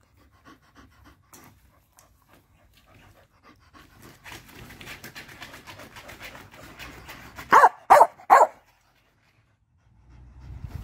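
Soft panting and rustling, then a dog barks three times in quick succession; the barks are the loudest sound.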